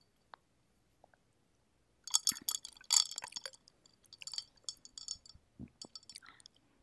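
Ice cubes clinking and rattling in a glass of iced cherry ade as it is handled, in two bursts of quick clicks about two and four seconds in. Near the end there is a short low thud as the glass is set down on the table.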